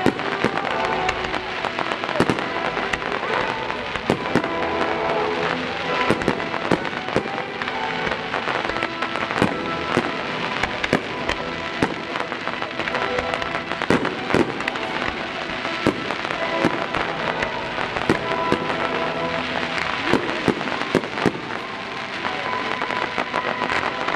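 Fireworks display: many aerial shells bursting in quick succession, sharp bangs mixed with crackling.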